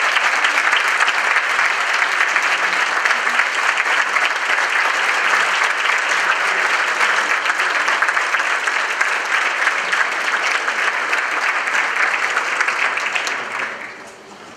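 Large audience applauding, a dense, steady clatter of many hands clapping that dies away shortly before the end.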